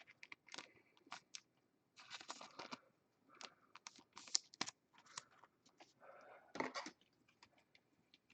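Faint, scattered clicks and crinkly rustles of a trading card being handled and slid into a plastic card sleeve or holder.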